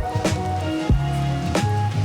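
Background music with a steady drum beat, held bass notes and a simple melody.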